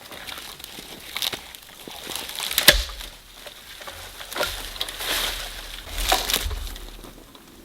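Dry wood and brush crackling and snapping in irregular bursts, with the sharpest crack a little under three seconds in.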